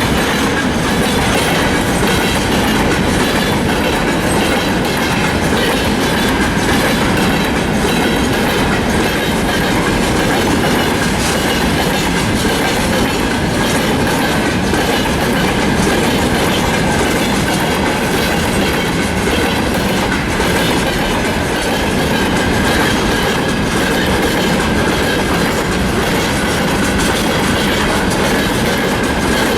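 Freight train wagons rolling past at close range, a loud steady rumble with the clatter of wheels on the rails and a thin steady high tone above it.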